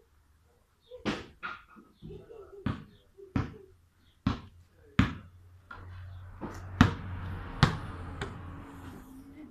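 A basketball being dribbled on hard ground close to the microphone: about nine sharp bounces at uneven intervals.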